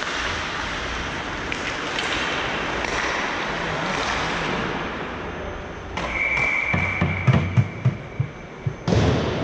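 Hockey game play: a steady wash of rink noise, then from about six seconds in a quick series of sharp clacks and knocks of sticks and puck, with a steady high-pitched tone held for about three seconds over them.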